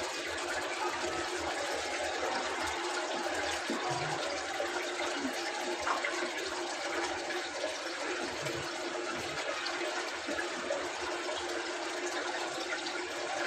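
Steady rush of water inside a Samsung inverter washing machine.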